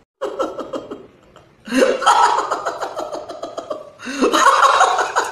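A person laughing loudly in three bursts, the second and third longer and louder.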